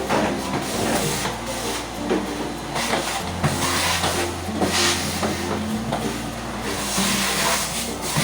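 Vacuum cleaner running with a steady hiss of rushing air, over a low, stepping bass line.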